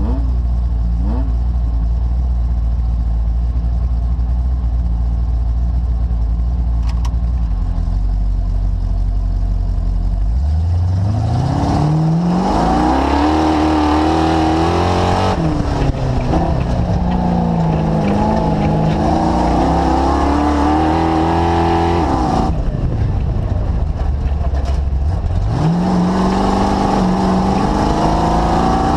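DirtKinetics Explorer's engine running with a low, steady rumble, then accelerating about ten seconds in. Its pitch rises and falls as it drives, drops back near idle for a few seconds, then climbs again and holds.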